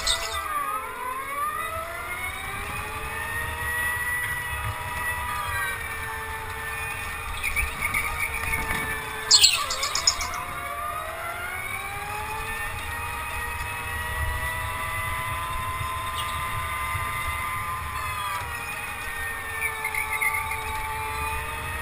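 Go-kart motor running at speed, heard from the driver's seat. Its whine sinks in pitch and climbs back up three times as the kart slows for corners and accelerates out, over a steady low rumble. A brief high squeal comes about nine and a half seconds in.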